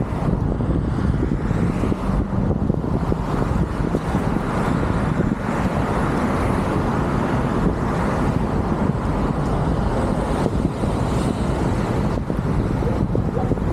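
Car driving along a street: steady road and tyre noise with wind rumbling on the microphone, and other traffic around.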